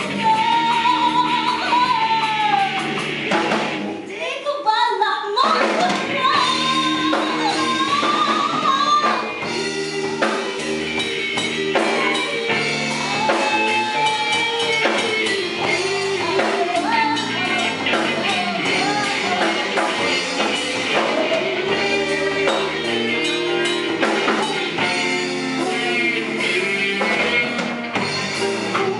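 Live rock band playing: a woman singing into a microphone over two electric guitars, bass guitar and drum kit. The band thins out briefly about four seconds in, then comes back in full.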